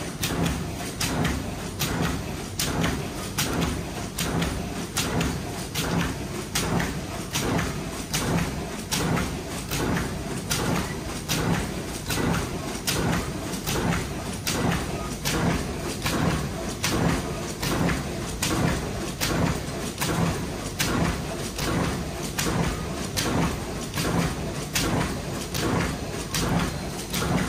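Bag-making machine running: its spring-loaded sealing and cutting bar clacks down on the plastic film in a quick, even rhythm over a steady mechanical hum.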